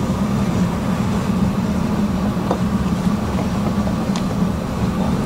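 Steady low mechanical hum with no change in level, and a couple of faint clicks in the middle.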